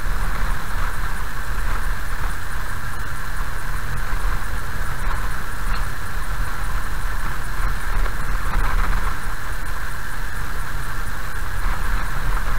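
A car driving slowly on an unpaved gravel road, heard from inside the cabin: a steady low rumble of tyres and engine with a constant hiss above it.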